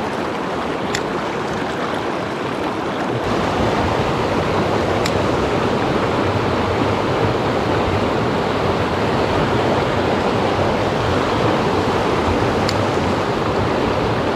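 A mountain river rushing over rocks: a steady noise of running water that gets a little fuller about three seconds in, with a few faint ticks.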